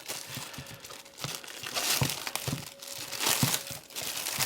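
Watch packaging being unwrapped by hand: crinkling and tearing with scattered small clicks, and louder rustles about two seconds and three and a half seconds in.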